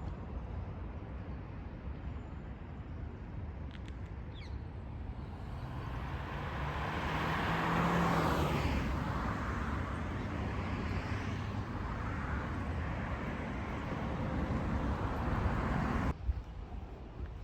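Road traffic: a vehicle passing close by, growing louder to a peak about eight seconds in and then fading, over a steady low traffic rumble.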